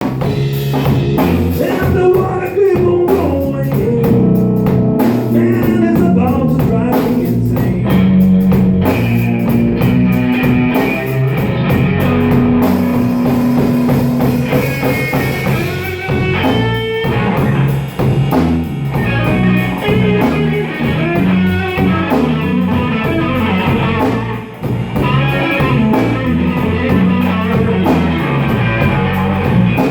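Electric blues band music: lead electric guitar playing over bass and drum kit.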